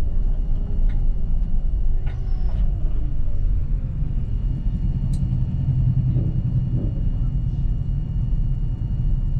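City bus on the move: a steady low rumble of engine and road, with a few faint clicks and rattles.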